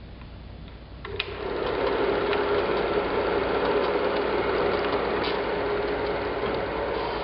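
A small machine starts up about a second in with a click, then runs steadily with a whirring hum and faint mechanical ticking.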